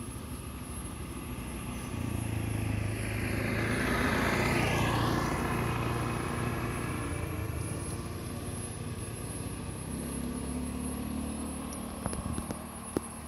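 A motorbike passing along the road, its engine growing louder to a peak about four to five seconds in, then fading away. A few faint clicks near the end.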